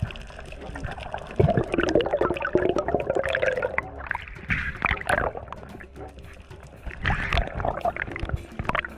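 Muffled underwater gurgling and bubbling with irregular knocks and bumps, picked up underwater through a dive camera housing.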